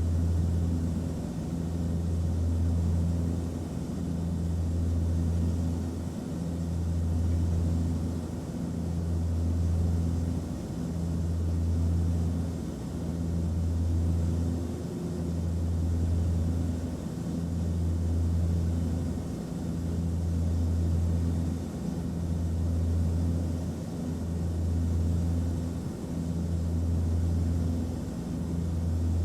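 Airplane cabin noise in flight: a steady low engine drone over a hiss of airflow, swelling and dipping in a slow regular throb about every two seconds.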